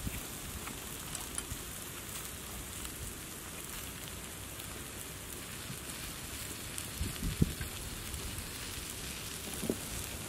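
Steady patter of rain falling, with a few soft low thumps about seven seconds in and again near the end.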